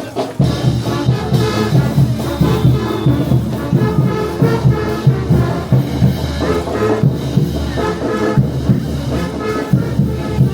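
Brass band playing a lively tune, brass over a steady low beat.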